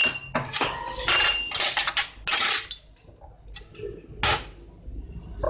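Filled plastic milk bottles being handled, with a few sharp knocks and clatters as they bump against each other and the counter.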